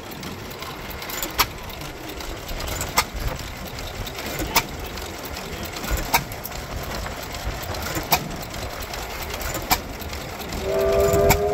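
1911 International Harvester Famous 6 hp portable gasoline engine running hit-and-miss: a single sharp firing bang about every one and a half seconds as it coasts between power strokes. Near the end a steady whistle starts, louder than the engine.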